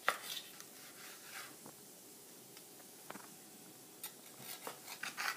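A knife cutting cooked steak on a cutting board: a sharp knock on the board at the start, a few light taps, then a quick run of short sawing strokes from about four seconds in.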